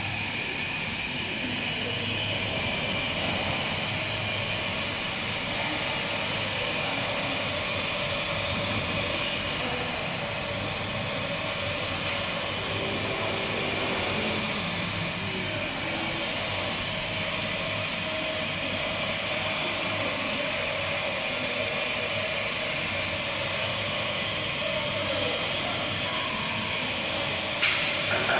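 CNC lathe running through a turning pass, spindle at about 1200 rpm with the tool feeding along the workpiece: a steady machine hum and whine with a high steady tone. A short sharp click comes near the end.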